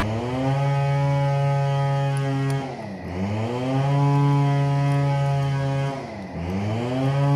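A motor-like hum, such as a small electric appliance motor, running at a steady pitch. About every three seconds it dips briefly in pitch and speeds back up.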